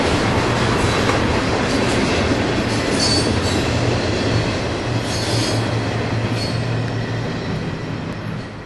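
Freight train cars rolling past, steel wheels rumbling on the rail, with short high wheel squeals about three and five seconds in. The sound fades away near the end.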